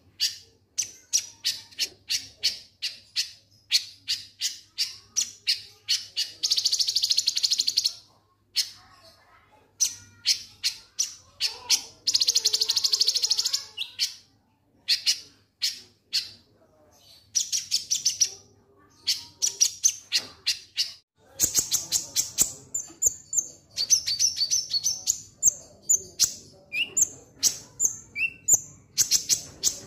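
Konin sunbird calling its 'ngek ngek' call: runs of short, sharp, high-pitched notes in quick series broken by short pauses, with two long buzzy rattles about six and twelve seconds in, and a denser, faster run of notes from about two-thirds of the way through.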